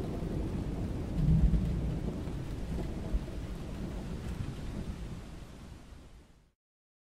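A low, rumbling noise swells about a second in. It then fades steadily away to silence near the end.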